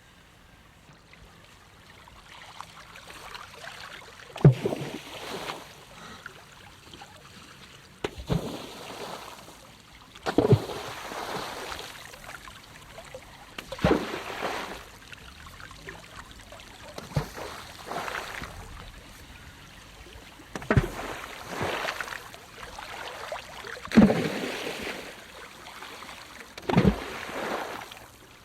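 A swimmer's strokes splashing in water. Each is a sudden slap followed by a rush of water, about every three seconds. The first few seconds are quieter, before the first clear splash.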